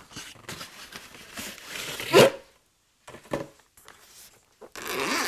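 Packaging crinkling and rustling as the EyeMuffs G6 are unpacked, with one short, loud cry that bends in pitch about two seconds in.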